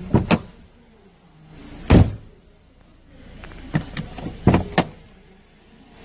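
Mazda power-window master switch clicking as it is pressed and released, with the power-window motor running in between. There are two clicks at the start, a loud one about two seconds in, and a quick run of clicks near the end.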